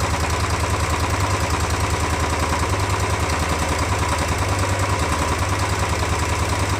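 Royal Enfield Classic 350's single-cylinder four-stroke engine idling steadily with even pulses. It has fresh engine oil in it, and the mechanic takes the tappet tick-tick noise to be gone.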